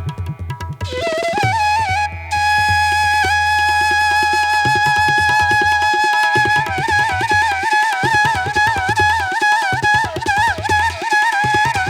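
Instrumental background music: a held, ornamented flute-like melody that wavers in pitch, over repeated hand-drum strokes and a low sustained bass tone.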